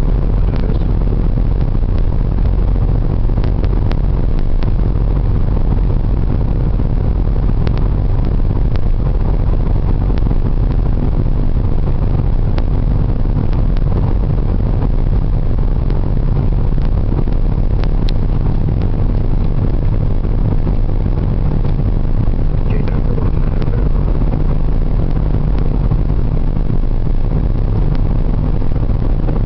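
Steady low rumble of a car driving at constant speed, its engine and tyre noise heard from inside the cabin. The road tunnel adds to the drone, with a few faint clicks.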